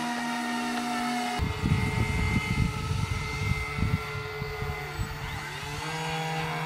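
Small electric motors spinning the air propellers of a homemade three-motor RC airboat, a steady whine of several tones. About a second and a half in, a gusty low rumble comes in over it for a couple of seconds, and near the end the motor pitch dips and then climbs back up.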